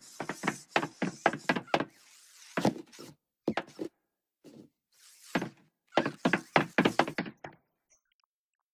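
Cartoon knocking sound effect: a fast run of about eight sharp knocks, a few single knocks, then another fast run of knocks.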